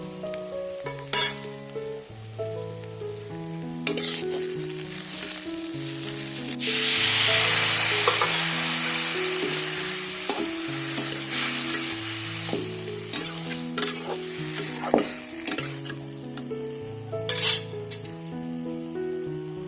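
Frying in hot oil in a cooking pan: a loud sizzle starts suddenly about six and a half seconds in and slowly dies down. There are several sharp clinks of a spatula being stirred against the pan, over steady background music.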